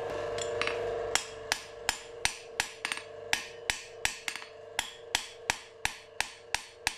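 Hand hammer striking a pale-red-hot bar of C70 carbon steel on an anvil: steady blows about three a second, starting about a second in, each with a short ring. This is low-temperature hammering to break up and refine the coarse grain left by quenching the steel too hot.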